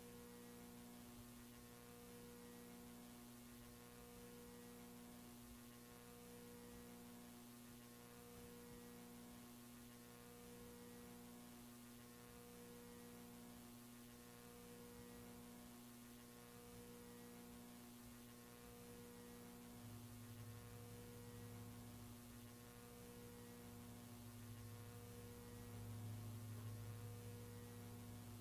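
Faint electrical mains hum: steady low tones with some overtones swelling and fading about every two seconds. The low hum grows louder about two-thirds of the way through.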